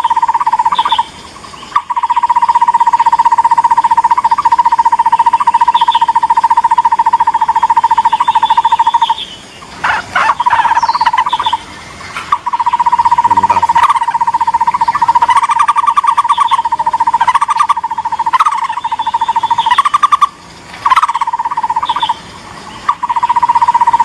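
Takur bukit barbet calling: a loud, fast run of repeated notes on one steady pitch, going on in long trains broken by several short pauses, with a few higher notes over it.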